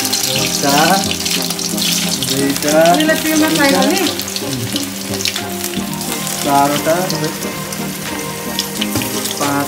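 Bread pakoras sizzling as they deep-fry in hot oil in an iron karahi: a steady hiss with crackles. A melody plays in the background.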